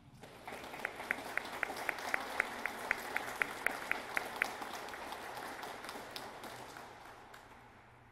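Audience applauding, with one set of sharp, close claps at about four a second for the first few seconds; the applause dies away near the end.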